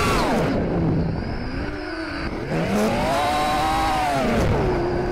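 Armattan Rooster 5-inch FPV quadcopter's 2306 2450 kV brushless motors whining in flight. The pitch drops as the throttle is cut, stays lower and quieter for about two seconds, then climbs again as the throttle comes back and falls once more near the end.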